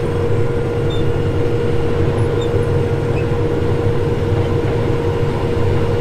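Combine harvester running steadily: a deep engine rumble with a constant whine on top.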